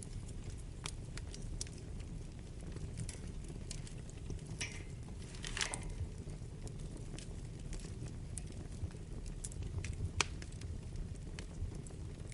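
Wood fire burning in a fireplace: a steady low rumble of the flames under scattered sharp crackles and pops, with a short hiss about halfway through.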